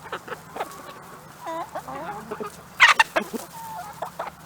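Chickens clucking and calling while they feed: a run of short, varied clucks, with one louder, harsh call about three seconds in.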